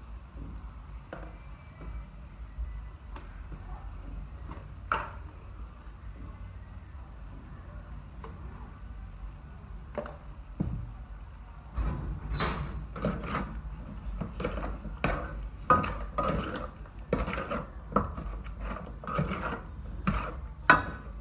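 Metal ladle scraping and knocking against a metal pot as chunks of pork leg are stirred, in quick irregular strokes from about twelve seconds in. Before that there is only a faint steady low background with an odd click.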